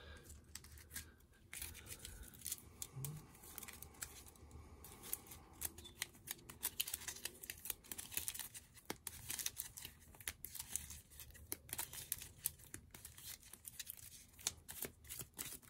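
Game cards being handled on a tabletop: faint, scattered scrapes and light clicks as cards are slid, flipped and set down.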